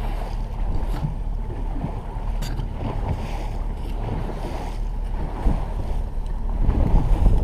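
Fishing boat under way on a lake: the outboard motor running steadily under water rushing past the hull, with wind buffeting the microphone. It gets louder near the end.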